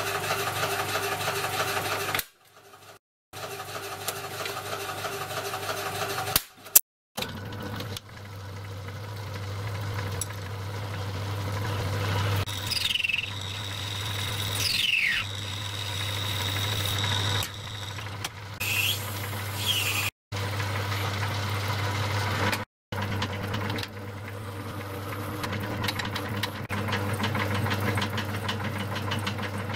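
Metal lathe running, turning and then drilling a small metal bush for the water tender's outlet, with a steady motor hum. A few short sliding squeals from the cut come partway through, and the sound breaks off abruptly several times.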